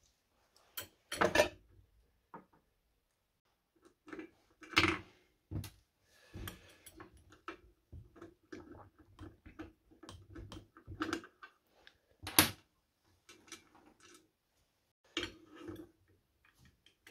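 Scattered metal clicks, clinks and knocks from working on a hydraulic floor jack by hand as its cover plate and the bolt beneath are taken off, with a few sharper clanks standing out, the loudest about three quarters through.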